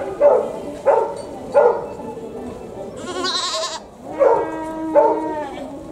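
Domestic goats bleating over and over: three short calls, a higher wavering cry about three seconds in, then two longer, drawn-out bleats near the end.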